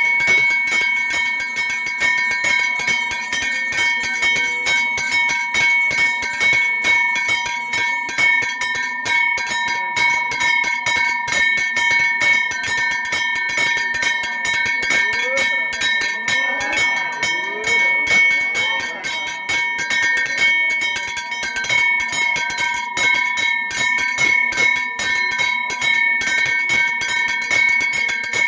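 Temple puja bell rung rapidly and without pause, its steady ringing tones held throughout. Voices rise over it for a few seconds about halfway through.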